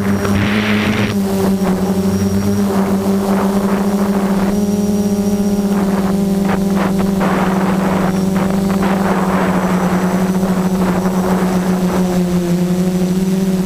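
F330 quadcopter's brushless motors and propellers buzzing steadily in flight, heard from the onboard camera, with rushing air noise that swells and fades several times.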